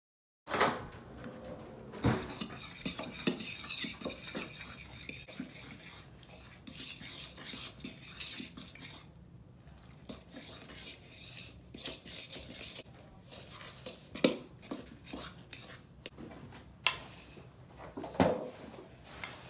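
A utensil stirring flour and water in a mixing bowl to make dumpling dough: scraping and swishing against the bowl, with a short pause in the middle. A sharp knock about half a second in and several sharp clinks of the utensil against the bowl in the second half.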